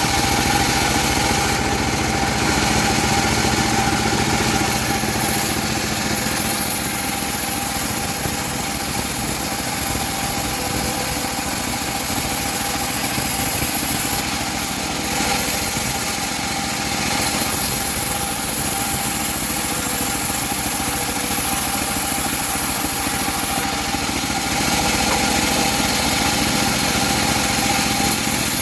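Engine-powered homemade bandsaw mill running steadily, with a constant whine and a hiss over the engine note.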